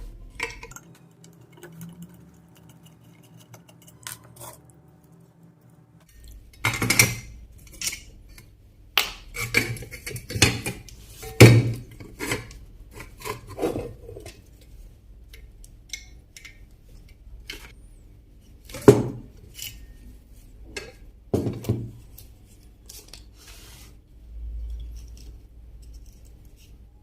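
An old electric iron being taken apart by hand: a run of sharp metal clinks and knocks as its parts and tools are handled and set down, bunched together in the middle, with two more loud knocks later.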